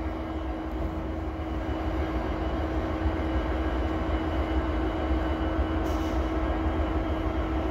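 Canadian Pacific SD70ACU diesel-electric locomotives idling at a standstill: a steady low rumble with a constant hum.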